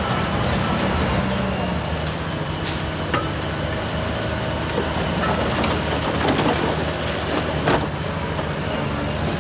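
Heavy diesel earthmoving machine, a bulldozer, running steadily, with a few sharp metallic clanks.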